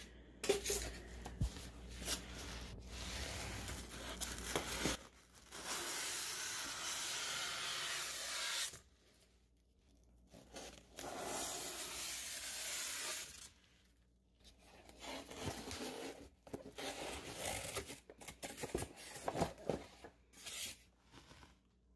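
Styrofoam packing squeaking and scraping against styrofoam and cardboard as it is pulled out of a packing box, in stretches broken by short pauses. It makes a nails-on-a-chalkboard grating sound.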